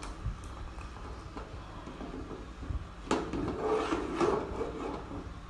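Metal ladle stirring and scraping through thick, reduced tamarind and plum chutney in an aluminium pot, with a ladleful poured back in. The handling grows louder a little past halfway, and a sharp click comes at the very end.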